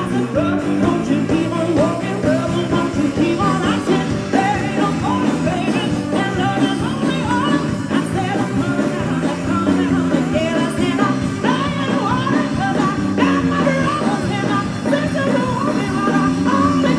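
Live blues-rock trio playing loudly: electric guitar with gliding, bent notes over keyboard and a steady drum beat.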